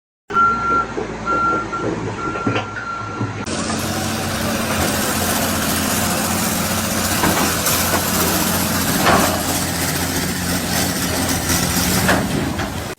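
A heavy vehicle's reversing alarm beeping in uneven pulses over its running engine. About three seconds in, the sound cuts to a steady heavy engine running, with a few sharp knocks.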